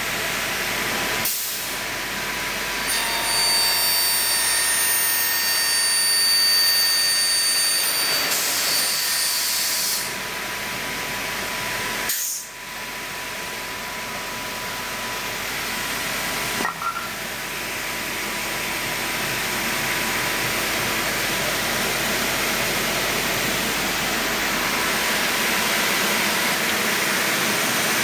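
Industrial mitre saw in operation, a steady hissing machine noise, with a cluster of high whining tones from about 3 to 10 seconds in. The sound breaks off abruptly three times.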